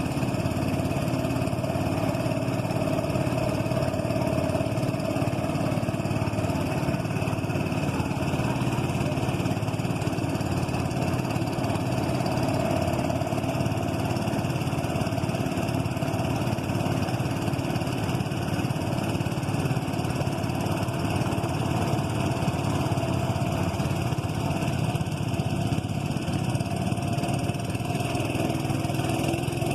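Small boat engine running steadily at an even speed, with a wavering mid-pitched drone.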